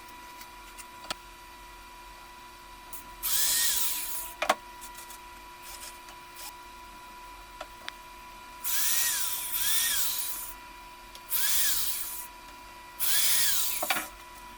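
Electric hand drill run in five short bursts of about a second each, its motor spinning up and winding down with each pull and release of the trigger. Sharp clicks fall between the bursts, and one comes about the middle.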